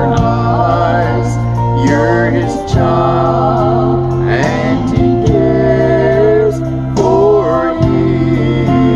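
A man singing a gospel song over an instrumental backing track, with steady held bass notes under the melody.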